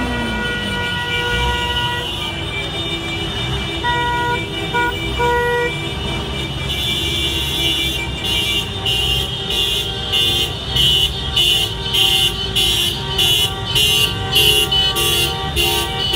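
Vehicle horns honking over the running engines of a slow tractor convoy. Held horn tones sound throughout, with a few short toots about four to five seconds in. From about eight seconds on, a horn blasts over and over, a little under a second apart.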